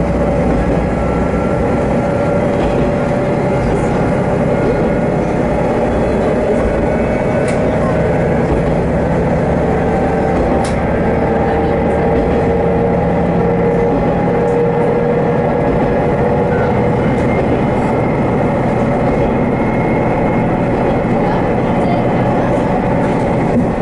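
Haimo 330 diesel railcar running along the line: a steady engine drone with rail noise underneath.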